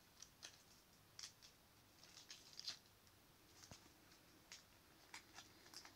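Faint, scattered crinkles and small clicks of a foil Pokémon TCG booster pack being handled.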